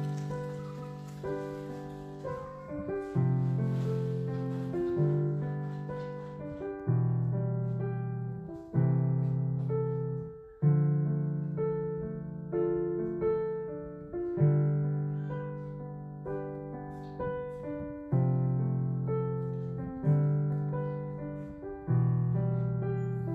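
Slow solo piano music, a new chord struck every one to two seconds and left to ring and fade.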